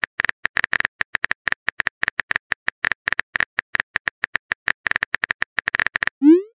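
Smartphone on-screen keyboard typing clicks: a rapid, irregular run of short taps, several a second, one per typed letter. Near the end the taps stop and a short rising swoosh plays as the message sends.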